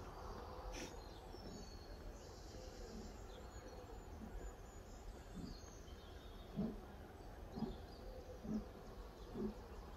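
Birds chirping over a low, steady outdoor rumble, with faint short low pulses about once a second from a little past halfway.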